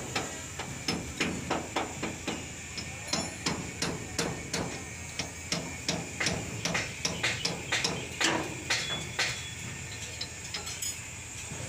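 Repeated hammer blows, about two to three a second, that stop about nine seconds in.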